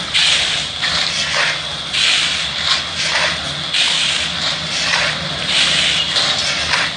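Crushed-stone gravel being shovelled: a scrape and rattle of stones comes about once a second.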